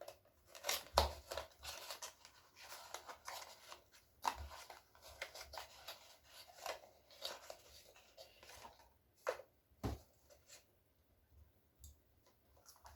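A gift box of cosmetics being opened by hand: faint, scattered crinkles, rips and clicks of packaging, with a sharper snap about a second in and again near ten seconds.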